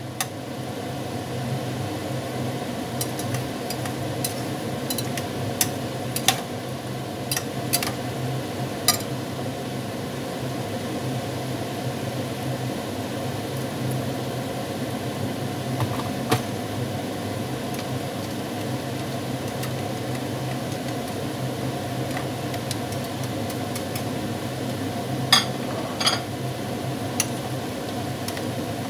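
Steady hiss and hum of food cooking in a steaming wok and pot, with sharp clicks of a metal slotted spatula knocking against the pot as it stirs: a run of them early on and a couple more near the end.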